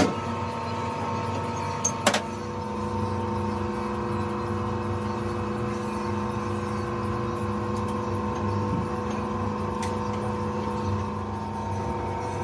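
Rubber hose extruder running with a steady machine hum of several layered tones. A sharp knock comes right at the start, and two more come close together about two seconds in.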